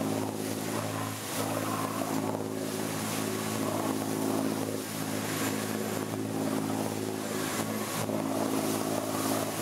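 Boat's engine running at a steady cruising speed, a constant low hum, with a hiss of wind and water over it.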